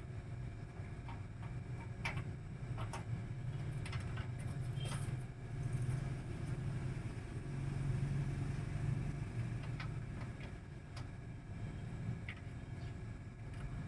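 A cat breathing with a low rumble that swells and fades every second or two, with scattered faint clicks, from a bubble in its nose.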